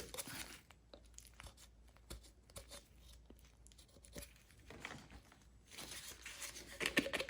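Faint scattered clicks and scraping from handling a hedge trimmer's fuel tank while pushing the old fuel line remnants through its holes into the tank, with a louder flurry of rustling clicks near the end.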